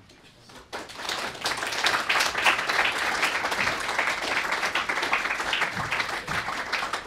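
Audience applauding, a dense patter of many hands clapping that starts about a second in.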